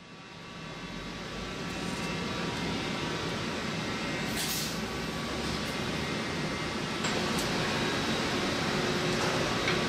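Steady machine-shop noise, a broad hum and hiss with faint steady tones, fading in over the first second or two. A brief hiss comes about four and a half seconds in.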